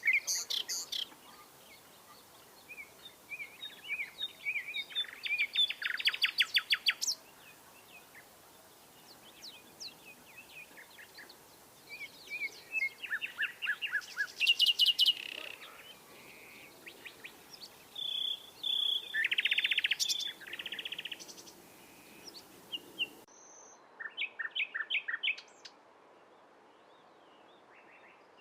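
Common nightingale singing: a run of varied phrases separated by short pauses, built from rapid strings of repeated notes, trills and clear whistled notes.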